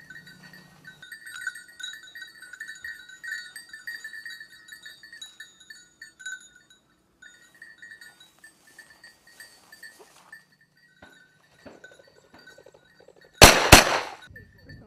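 A bell on a hunting dog jingling as the dog works through cover. Near the end, two shotgun shots a fraction of a second apart.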